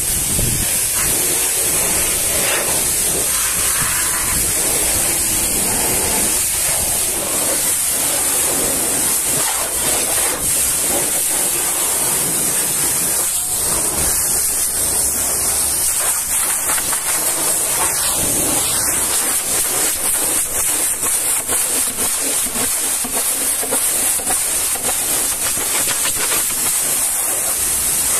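Pressure-washer lance spraying a high-pressure jet of water, rinsing foam off a truck's wheel and side panels: a continuous loud hiss.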